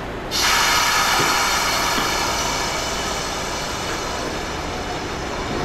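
Iyotetsu 2000-series streetcar moving off from the tram stop. Its running gear and motors make a steady, ringing mechanical sound that starts abruptly about a third of a second in and slowly fades as the car draws away.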